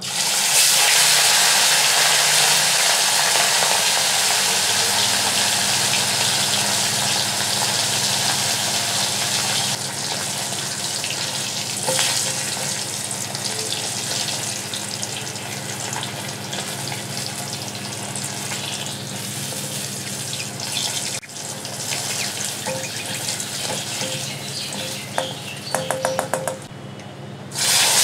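Whole pomfret frying in hot oil in an aluminium kadai, sizzling loudly the moment it goes in, then frying steadily and a little quieter after about ten seconds. A few light clicks near the end.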